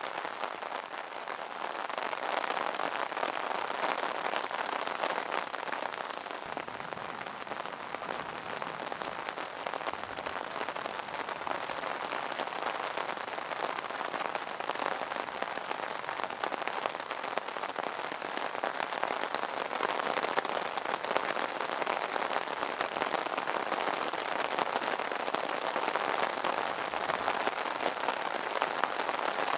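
Steady rain pattering on an umbrella, a dense, even hiss of many small drop impacts.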